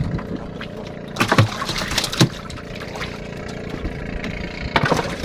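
Water sloshing against a small wooden fishing boat while a longline is hauled in by hand, with three short, sharp bursts of noise, the loudest about two seconds in.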